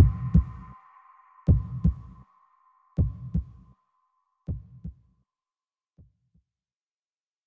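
The end of a hybrid trap track: a heartbeat-like double thump of deep bass repeats every second and a half, growing fainter with each beat until it stops about six seconds in. A fading high held tone lingers under the first few beats.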